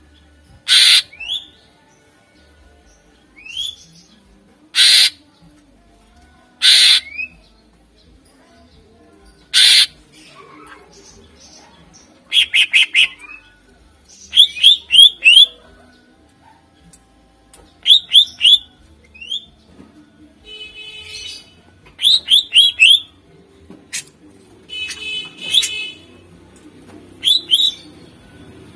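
Green leafbird (cucak ijo) singing loudly: four harsh rasping calls a few seconds apart, then quick runs of three to five sharp chirped notes alternating with short buzzy trills.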